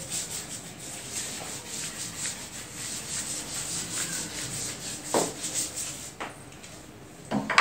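Hand-held eraser rubbed quickly back and forth across a whiteboard, wiping off marker writing, with two or three short knocks near the end.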